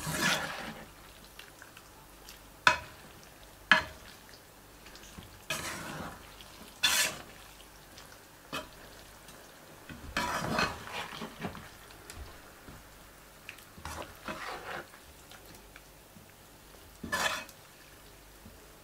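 Plastic slotted spatula stirring and tossing noodles and vegetables in broth in a stone-coated wok: wet swishing strokes now and then, and a few sharp knocks of the spatula against the pan, the loudest two a second apart near the start.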